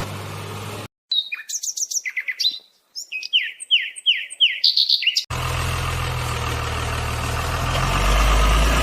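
A songbird chirping in a quick series of short falling notes for about four seconds, against a dead-silent background. An engine idling with a steady low hum cuts in about five seconds in and runs on.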